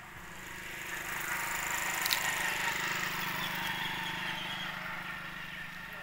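A motor vehicle passing by: its engine hum and road noise swell over the first two seconds, then slowly fade.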